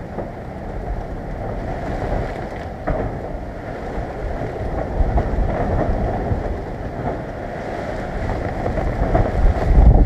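Typhoon wind gusting through a loquat tree, its leaves thrashing, with rain. Gusts buffet the microphone with low rumbles about five seconds in and again, loudest, near the end.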